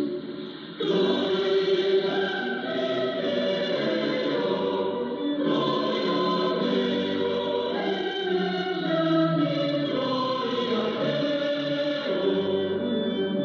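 Choir singing, received as a longwave AM broadcast on a Yaesu FRG-8800 communications receiver, with the narrow, muffled treble of AM radio. The singing dips briefly in the first second, then continues steadily.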